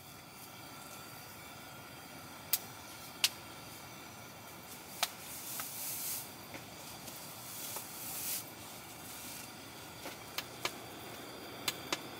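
Handling sounds inside a tent: fabric rustling as socks and clothes are pulled on, with scattered sharp clicks and taps, the loudest two a few seconds in, and two quick clicks near the end as a battery camping lantern is touched, over a steady low hiss.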